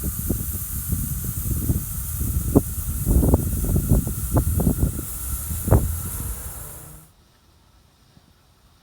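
Steam hissing from a 5-inch gauge miniature steam locomotive, with low rumbling and irregular knocks underneath; the hiss cuts off suddenly about seven seconds in.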